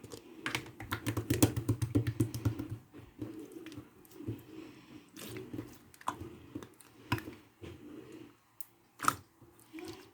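Clear green slime being kneaded and pressed by hand, giving sticky clicks and small pops. The clicks come in a rapid run for the first few seconds, then sparser.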